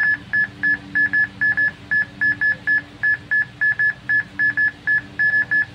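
Gold Hunter Baston type 3D ground scanner beeping while it scans in ground-scanning mode: a rapid string of short high beeps, all at one pitch, about four a second and unevenly spaced.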